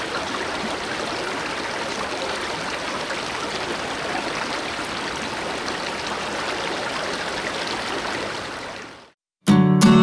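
Steady rush of flowing stream water, fading out about a second before the end. After a brief gap, strummed acoustic guitar music starts.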